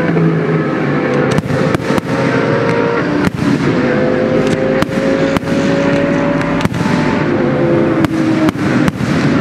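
Aerial firework shells bursting in about a dozen sharp bangs at irregular intervals. Underneath runs the continuous engine note of GT race cars on the circuit, one tone slowly rising in pitch.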